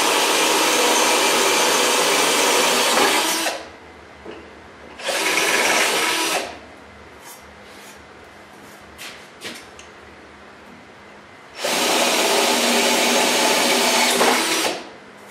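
Cordless drill boring holes into a black metal tubing frame. It runs for about three and a half seconds and stops, gives a short burst about five seconds in, and after a few light clicks runs again for about three seconds near the end.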